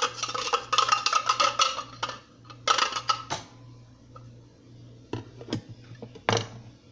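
Metal utensil scraping and clinking against a dish in quick runs of clicks, then three single knocks near the end.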